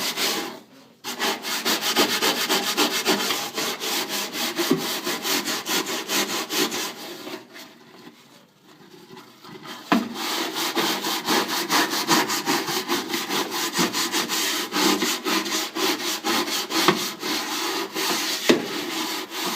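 Rapid back-and-forth scrubbing at rust spots on the inside of a microwave oven treated with anti-rust gel, about five strokes a second. It breaks off briefly about a second in and again around the middle.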